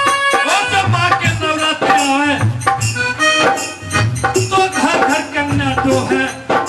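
Instrumental interlude of Indian folk devotional music: a bending melody line over a steady drum beat and a shaker rhythm.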